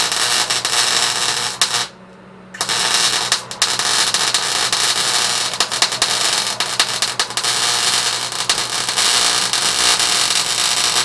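Electric arc welding on a steel exhaust pipe: a steady crackling, sputtering sound of the arc. The arc stops briefly about two seconds in, then strikes again and runs on, over a steady low hum.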